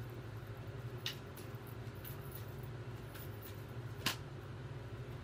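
A deck of tarot cards shuffled by hand: soft card clicks and flicks, with two sharper snaps about a second in and about four seconds in, over a steady low hum.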